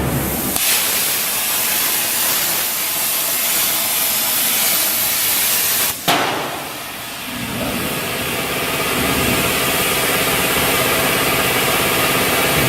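An air plasma torch, powered by a 100 A Huayuan plasma source, cutting 5 mm metal sheet: a loud steady hiss of the arc that starts about half a second in. About six seconds in there is a sharp click, the sound dips briefly, and then the hiss comes back with a faint steady whine under it.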